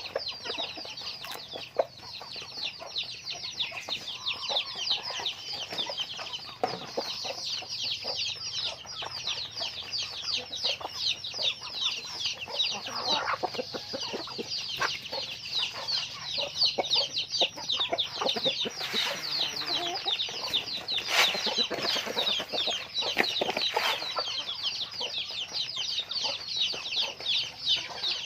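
A flock of chickens calling all together: a dense, steady chorus of many high, rapid chirps, with a few louder, lower calls here and there.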